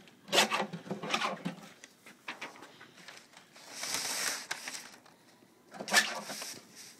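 Paper strip being handled and pulled over the rollers of a homemade wooden feed machine: bouts of rattling and knocking from the frame and rollers, with a rustle of paper about four seconds in.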